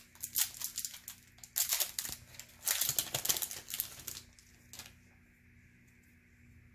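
Foil trading-card pack wrapper crinkling and tearing as it is opened by hand, for about the first four seconds, then quiet apart from a single click.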